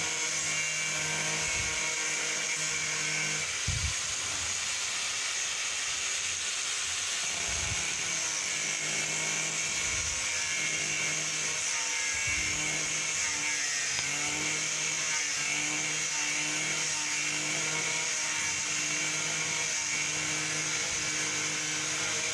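Angle grinder with a cutting disc running steadily as it cuts through the plastic top of a paint bucket, a constant high whine.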